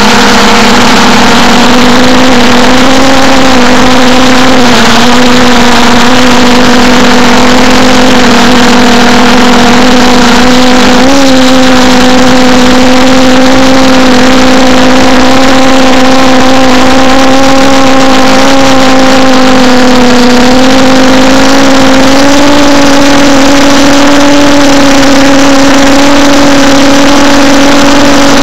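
A multirotor's motors and propellers heard through its onboard camera's microphone: a loud, steady buzzing hum over a rushing noise, stepping slightly up in pitch about three-quarters of the way through.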